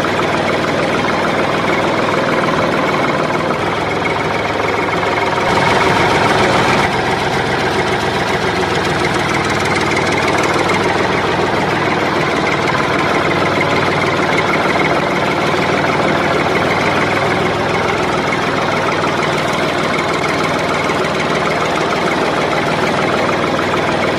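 Steady running tractor engine sound, laid over the toy tractor footage as a sound effect. It gets briefly louder for just over a second about five and a half seconds in.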